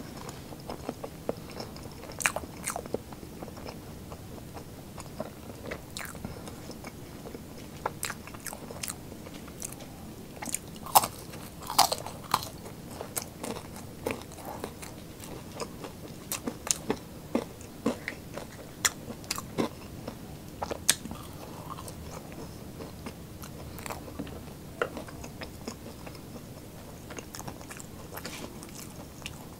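A person biting and chewing fried street food, with irregular sharp crunches and clicks of the bites and chewing.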